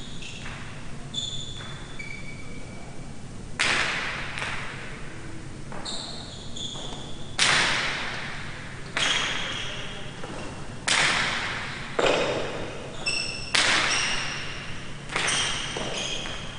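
Jai alai rally: the hard pelota striking the fronton walls and slamming into and out of the players' wicker cestas, a series of sharp hits about one to two seconds apart starting a few seconds in, each ringing on in the hall's echo.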